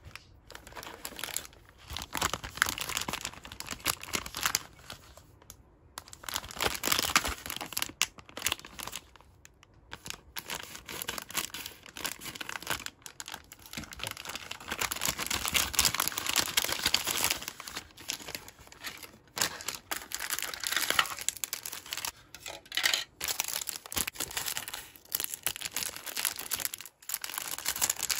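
Crinkling plastic packaging of a Kracie Neru Neru Nerune candy kit, handled in uneven bursts as the bag is torn open and its plastic tray and sheet of powder packets are taken out.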